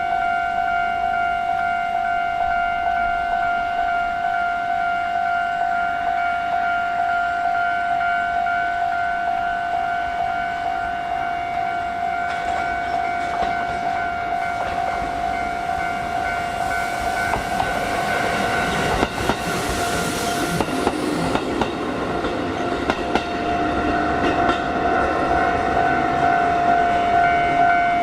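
A railway level-crossing warning alarm sounds with a steady, pulsing electronic tone. A Kotoden Nagao Line electric train, one of the line's ex-Keikyu cars, passes about two-thirds of the way in. Its wheel and running noise briefly drowns the alarm, with clacks as the wheels cross rail joints, and the alarm tone comes back as the train moves off.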